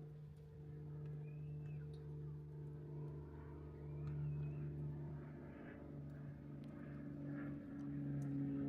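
A distant engine drone, steady and low, swelling slightly near the end, with a few faint bird chirps over it.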